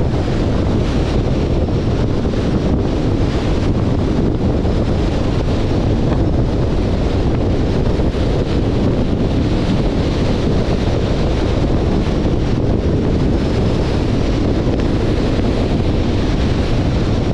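Steady wind noise rushing over the microphone of a camera on a moving car, heaviest in the low end and unchanging throughout.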